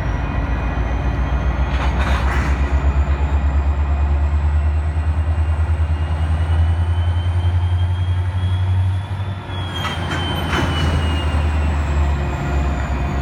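Canadian National diesel locomotive moving slowly past, its engine a deep pulsing rumble that eases about nine seconds in. A faint high whine slowly rises and then falls, and short bursts of noise come near two seconds in and again around ten seconds in.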